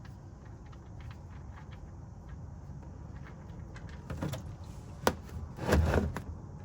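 Scattered light clicks and scrapes of a socket ratchet working an oil drain plug loose, then a sharp metallic click and a brief clatter near the end, over a steady low background rumble.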